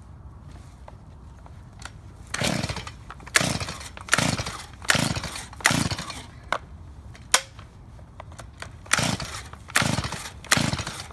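Stihl MS170 two-stroke chainsaw being pull-started from cold: eight quick yanks on the recoil starter, five in a row and then three more after a short pause, each giving a brief cranking whirr, and the engine does not catch. The saw is hard to start.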